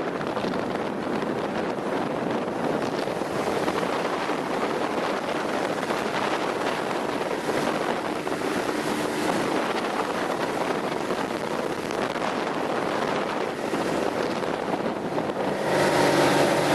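Motorboat running across the water, with a steady rush of wind on the microphone and water noise. Near the end the rush thins and a steady engine hum comes in.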